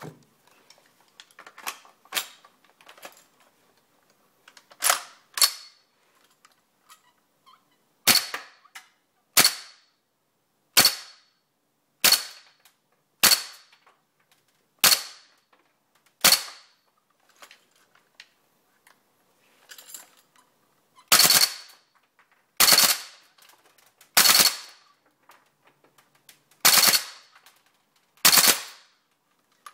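WE M14 gas blowback airsoft rifle firing single shots, about sixteen of them, one every one to two seconds with a longer pause in the middle, each a sharp crack of gas and cycling bolt. Faint clicks lie between the shots.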